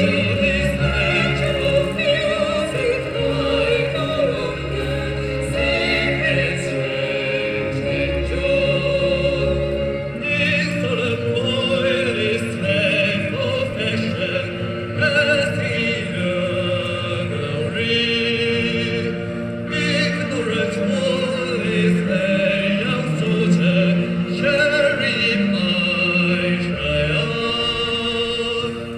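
Music with a singing voice, sung with vibrato over a full accompaniment. The deep bass drops out about ten seconds in.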